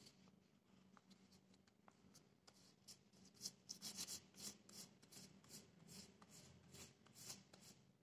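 Hands rubbing and pressing a large sheet of paper over an inked printing plate, burnishing the print by hand: faint, scratchy paper swishes. They come in a quick run of strokes from about three seconds in to near the end, over a faint low hum.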